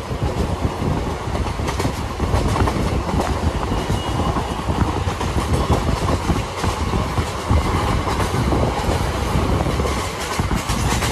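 Kalni Express passenger coach running at speed, heard from inside: a steady rumble of wheels on rail with a run of rapid clickety-clack from the rail joints.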